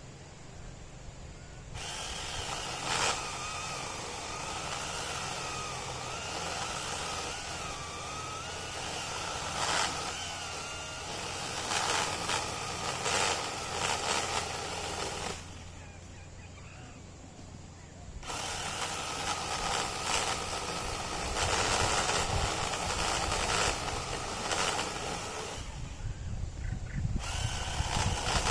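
8-inch cordless electric chainsaw running and cutting into a thick rambutan branch, its motor whine wavering in pitch as the load changes. It stops twice, briefly, about halfway and near the end.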